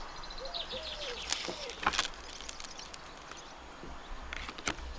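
A dove cooing a few short arching notes in the first second and a half, with a small bird's quick high chirps above it, a few sharp clicks later, and wind rumbling on the microphone.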